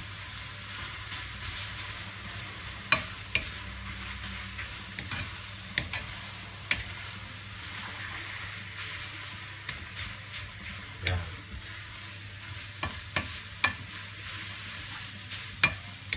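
Stir-fry sizzling in a metal frying pan as a wooden spatula turns glass noodles, bacon and pechay, with a steady frying hiss and scattered sharp knocks and scrapes of the spatula against the pan.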